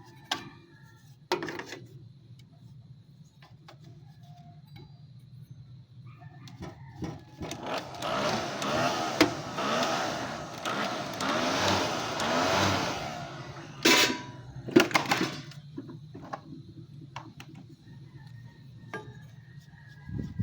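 A small motor runs for about five seconds in the middle, wavering in pitch, with knocks and clicks of parts being handled before and after it over a steady low hum.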